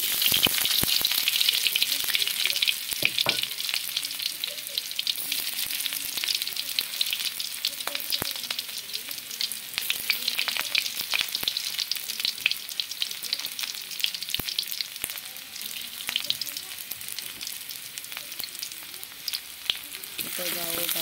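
Chopped onion and garlic hitting hot oil in a wok and sizzling, with many crackling spits. The sizzle starts suddenly and is loudest in the first few seconds, easing a little as the onions fry.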